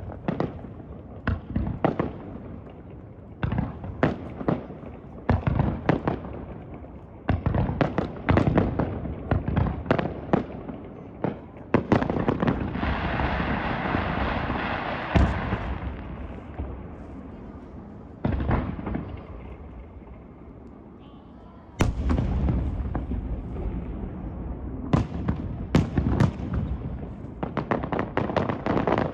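Aerial fireworks display: shells bursting in rapid succession with sharp booms and cracks, a steady hiss for about four seconds starting some twelve seconds in, then a loud burst and another fast run of bangs.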